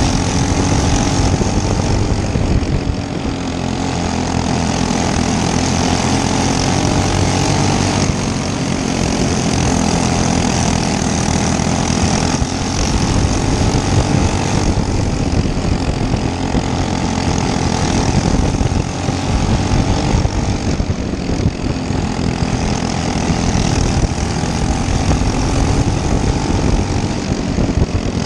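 Racing kart engine running hard on a dirt oval, its pitch rising and falling every few seconds as the throttle is opened and lifted through the laps.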